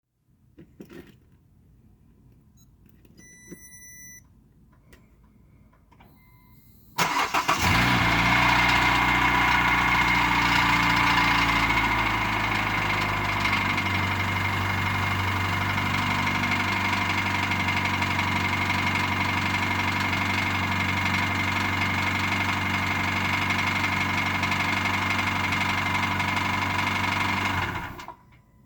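Car engine cold-started at about 2°C after a few short electronic beeps: it cranks briefly, catches about seven seconds in, runs at a fast cold idle, settles lower about five seconds later and is switched off near the end. The owner takes the cold-running knock for piston slap.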